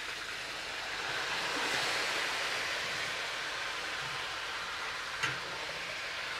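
Chicken pieces sizzling as they fry in a pot; the sizzle swells about a second in, and there is one sharp click about five seconds in.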